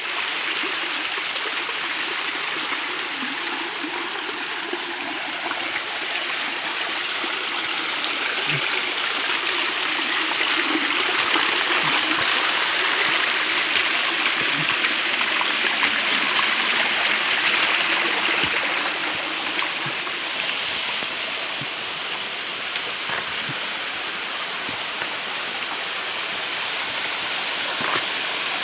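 Small stream splashing and rushing over rock cascades, a steady flow that swells louder for several seconds in the middle.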